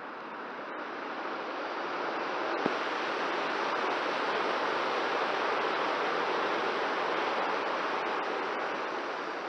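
Air rushing over an FPV model plane's onboard camera in a power-off gliding dive, with no motor heard, swelling over the first few seconds as it gathers speed and then holding steady. A single click about two and a half seconds in.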